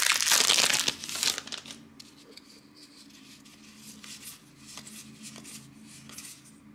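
Magic: The Gathering booster pack wrapper crinkling loudly as it is torn open, for about the first second and a half. Then only faint clicks and rustles of the cards being handled.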